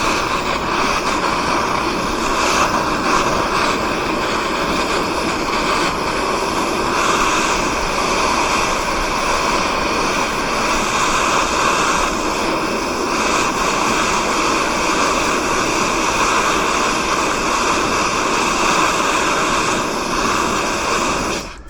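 Small handheld gas torch burning with a steady hissing flame, heating seized fasteners to loosen them; it cuts off suddenly just before the end.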